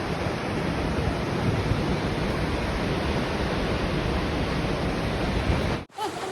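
Steady roar of Lower Yosemite Falls, water pouring down and crashing at its base, a dense rushing noise. It cuts out abruptly for a moment near the end.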